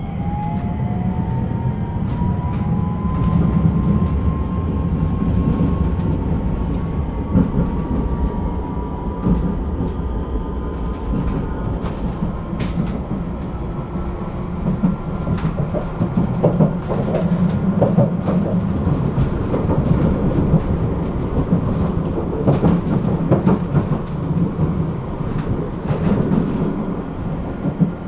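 Tram running along its line: a steady rumble of wheels on rails, with an electric motor whine that rises in pitch over the first few seconds and then holds. Scattered clicks and clacks from the track come through, more of them in the second half.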